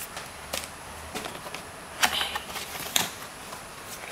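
Cardboard packaging of a camera box being handled as a cardboard insert is lifted out, with a few sharp taps and short rustles, the loudest about two and three seconds in.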